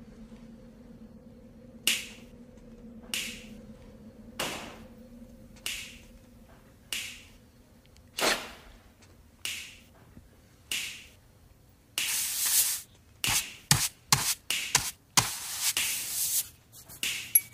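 Finger snaps at a steady beat, about one every second and a quarter, eight in all, followed from about twelve seconds in by a quick, dense run of sharp percussive hits and short noisy bursts.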